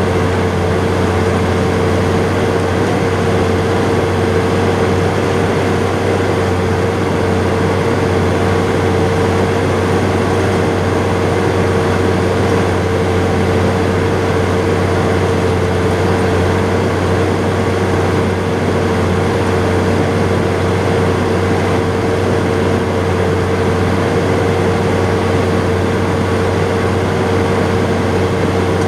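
John Deere 7800 tractor's six-cylinder turbodiesel engine running steadily, heard from inside the cab. A deep, unchanging drone carries a steady whine on top of it.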